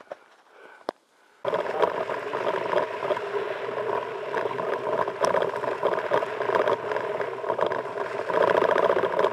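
Mountain bike riding over packed snow, heard from a camera mounted on the bike: a loud, steady rush of tyre and wind noise full of fast rattling from the shaking mount. It starts abruptly about a second and a half in, after a near-quiet moment with a single click.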